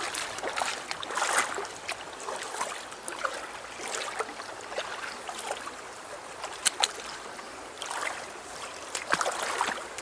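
Shallow river water splashing and sloshing in irregular bursts, with two sharp clicks about two-thirds of the way through.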